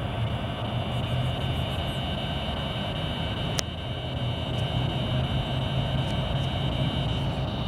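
A steady low engine-like drone, with a single sharp click about three and a half seconds in.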